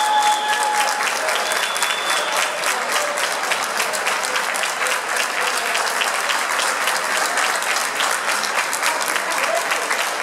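Crowd in a sports hall applauding steadily, a dense patter of many hands clapping, with a long high-pitched tone held over it for about the first second.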